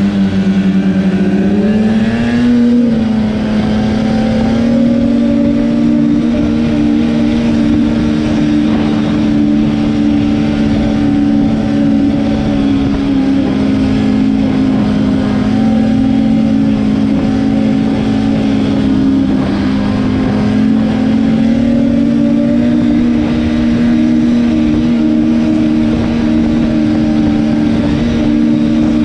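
Snowmobile engine running at high revs under full throttle, heard from the machine itself. The pitch climbs about two seconds in, then holds high and steady with slight wavering as the sled runs at speed through the snow.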